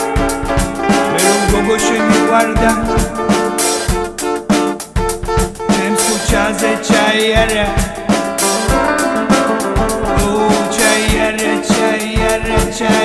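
Band music with a steady drum-kit beat, brass and electric guitar playing an instrumental passage.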